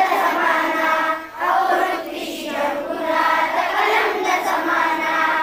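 A group of schoolchildren singing a school tarana together in chorus, phrase by phrase with short breaks between lines.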